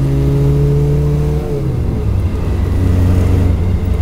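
Morris Minor Traveller's engine pulling in second gear, heard from inside the car, its revs climbing slightly and then falling away about one and a half seconds in, settling to a lower steady note.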